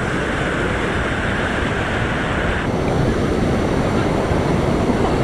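Steady rushing of a waterfall's falling water, with wind noise on the microphone; the sound shifts slightly in tone a little under three seconds in.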